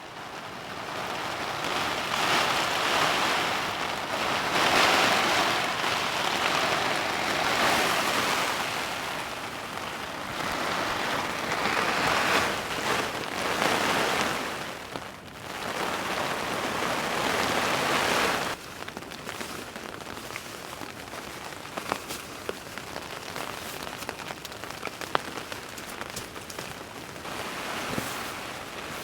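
Heavy rain, loud and surging in waves for most of the first two-thirds, then suddenly dropping to a steadier, softer downpour with single drops ticking distinctly.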